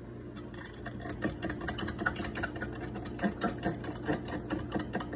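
A spoon stirring salt brine briskly in a glass measuring cup, clinking against the glass in a fast, even run of clicks, many a second, starting about half a second in.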